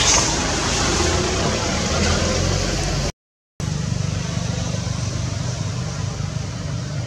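Steady outdoor noise of motor traffic, with the low hum of a vehicle engine running. The sound cuts out completely for about half a second a little over three seconds in.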